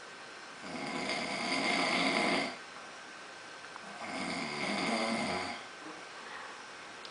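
A man snoring loudly in deep sleep: two long snores of about two seconds each, a couple of seconds apart, each growing louder before it stops.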